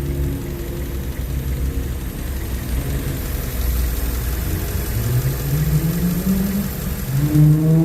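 Honda Civic's D16Y1 four-cylinder engine idling, then revved up twice, the second rise starting near the end. The owner says it runs without the rod knock it had before.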